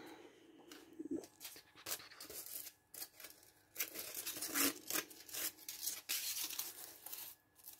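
Crumpled aluminium foil crinkling and paper rustling as they are handled, in short, irregular bursts that are loudest in the second half.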